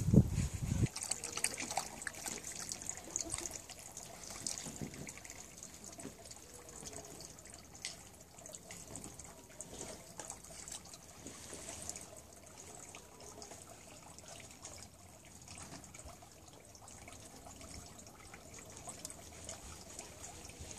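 A dog lapping water from a stainless steel bowl: an irregular patter of small wet laps for roughly the first half, then fading. A brief low rumble at the very start.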